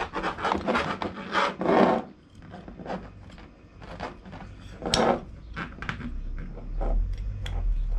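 Metal legs and pot-support arms of a small folding gas camping stove being handled, scraped and clicked into place, a quick run of rattling scrapes and clicks with the loudest about five seconds in.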